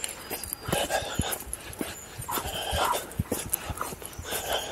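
Young English springer spaniel whimpering and panting, nervous and spooked in the half-light.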